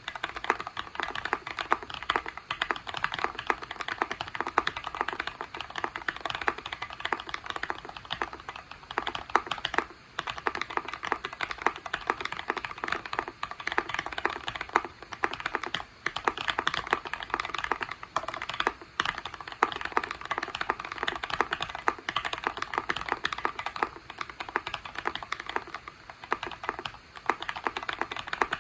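Fast, continuous typing on a Tofu60 60% mechanical keyboard with a brass plate and PE foam mod: a dense stream of keystroke clacks, broken by a couple of brief pauses.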